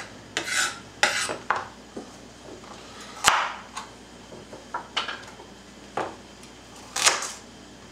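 Chef's knife chopping onion and carrots on a wooden cutting board: single sharp knocks at irregular intervals, roughly one a second, the sharpest about three seconds in.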